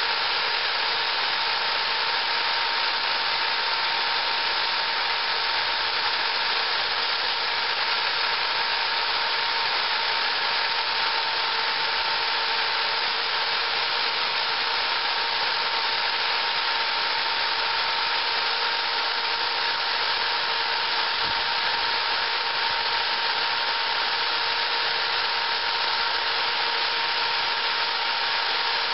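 Power drill running at a steady speed with a constant whine, spinning a small metal G-scale train wheel while a file is held against its tread, giving a steady rubbing hiss of file on metal.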